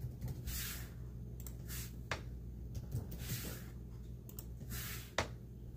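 Soft swishing rustles about every second and a half, with two sharp clicks, over a steady low hum.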